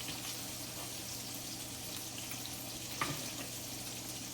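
Meatballs frying in a pan of grease on the stove, a steady fine sizzle, with a single short knock about three seconds in.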